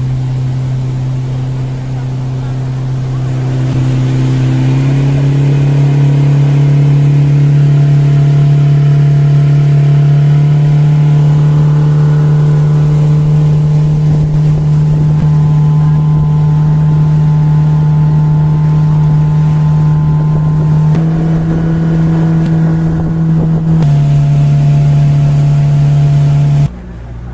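Motorboat engine running steadily at speed, a loud, even drone that shifts slightly in pitch a few times and stops abruptly near the end.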